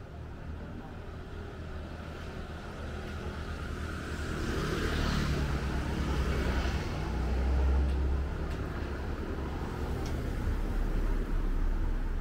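Street traffic: a motor vehicle passes close by. Its engine and tyre noise swells from about four seconds in and peaks around five to eight seconds, over a steady low rumble.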